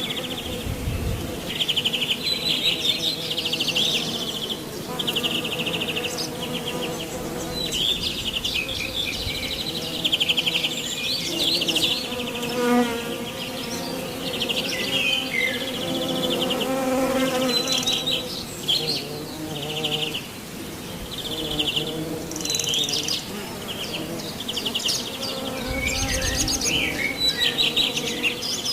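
A flying insect buzzing steadily close by, likely the beetle the clip is tagged with, while birds sing many short, high, repeated trills.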